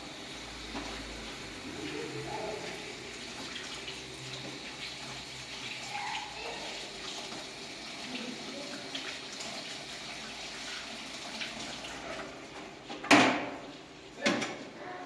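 Water running and splashing steadily, with faint voices in the background. Two sharp knocks come about a second apart near the end, the first the loudest.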